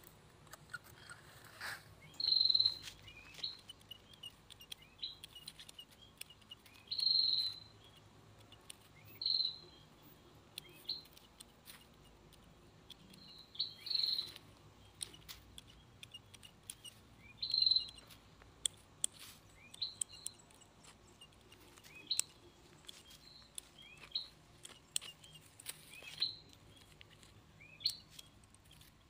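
Hand pruning shears snipping small side branches and twigs off anting putri (Wrightia religiosa) saplings, with leaves rustling. Short, high chirps recur every few seconds throughout and are the loudest sounds.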